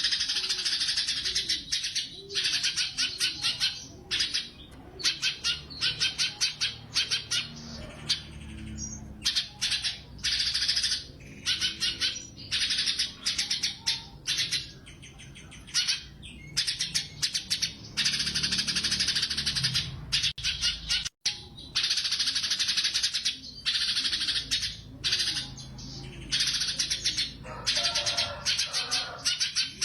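Cucak cungkok songbird singing a rapid, chattering trill in repeated bursts of one to two seconds, with short pauses between them.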